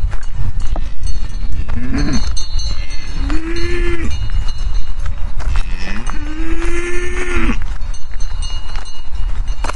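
A cow mooing three times, the last call the longest, over a steady low rumble.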